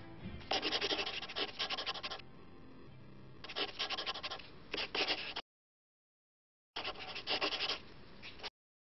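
Scratchy strokes of writing on paper, in three bursts of a second or two each, with short pauses between them.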